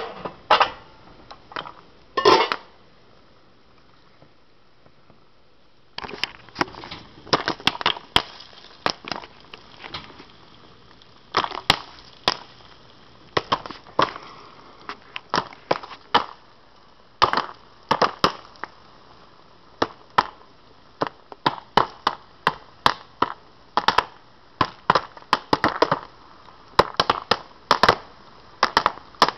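Jiffy Pop popcorn popping inside its foil-covered aluminium pan. A few scattered pops are followed by a pause of a few seconds, then the pops come fast and irregular, several a second.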